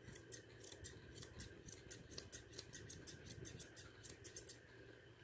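Straight grooming shears snipping through a standard poodle's dense curly coat: a quick run of crisp metallic snips, several a second, that stops about four and a half seconds in.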